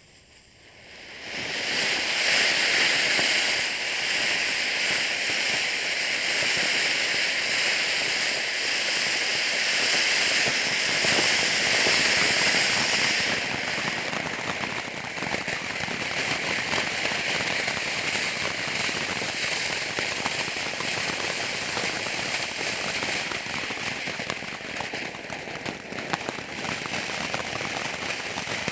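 Fireworks fountain spraying sparks with a long, steady hiss and a light crackle. It builds up over the first two seconds, is loudest until about halfway, then goes on a little softer.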